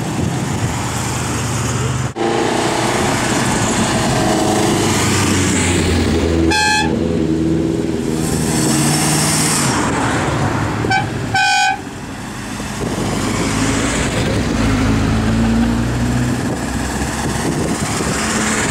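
Classic Jensen cars running past, their engines changing pitch as they go, with short car-horn toots about a third of the way in and again past the middle.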